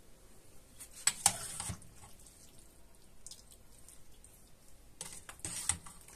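Vegetable soup being scooped with a metal ladle from an aluminium pot and poured into a plate: liquid splashing and sloshing, with a sharp clink of the ladle about a second in and more splashing near the end.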